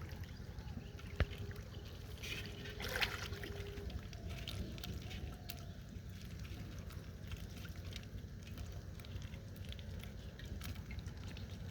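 Water sloshing and trickling, with a louder splash about three seconds in, over a steady low rumble.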